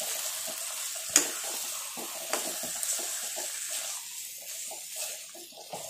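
Quail pieces sizzling in masala in a nonstick pan as a steel spoon stirs them, with the spoon scraping and clicking against the pan; a sharp click about a second in is the loudest sound. The sizzle thins out in the last couple of seconds.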